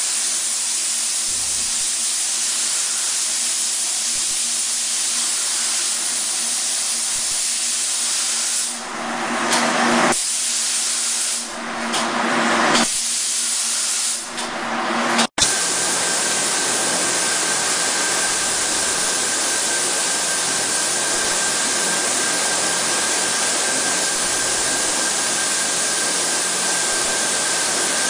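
Automatic compressed-air spray guns hissing steadily as they atomise paint onto plastic parts. About halfway through the hiss dips and swells a few times; in the second half a faint steady high tone sits over it.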